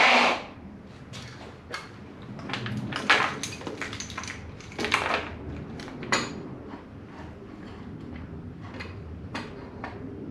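Scattered clicks, knocks and rattles of small hard parts being handled and fitted together while assembling a motorcycle rally navigation tower, with a short loud breath at the very start.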